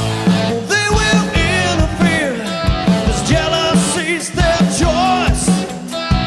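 Rock band playing live, with a man singing lead over bass guitar and a steady drum beat.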